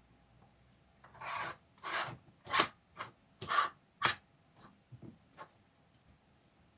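Curtain being slid along its rod: about six short rasping scrapes roughly half a second apart, followed by a few faint clicks.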